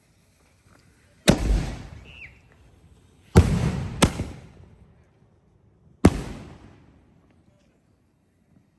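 Aerial firework shells from a chain-fused mortar rack going off: four loud bangs, each trailing off in a rumbling echo. The first comes about a second in, two follow close together near the middle, and the last comes about six seconds in.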